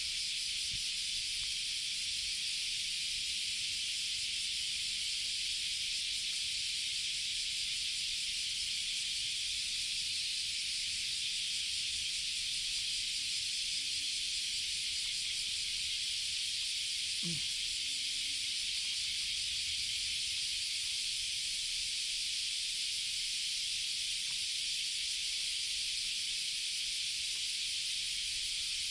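Steady high-pitched hiss with no change in level, and one brief low sound about halfway through.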